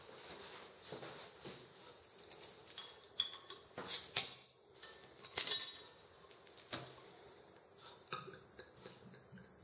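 Crown cap pried off a glass beer bottle with a bottle opener: small clicks, then two short, loud hissing bursts about a second and a half apart as the cap comes off. Light clinks of glass follow.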